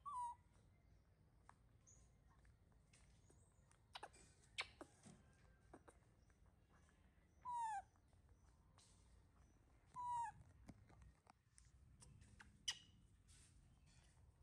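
A short falling animal call, about half a second long, heard three times: once at the start, then twice in the second half. Between them come a few sharp crunches of a baby macaque biting and chewing firm fruit, the loudest near the end.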